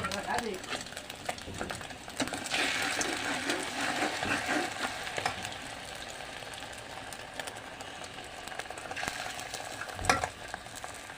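Food frying in a pan with a steady sizzle, which grows louder about two seconds in, while a utensil stirs and scrapes it around. There is a sharp knock at the start and another near the end, typical of a spatula against the pan.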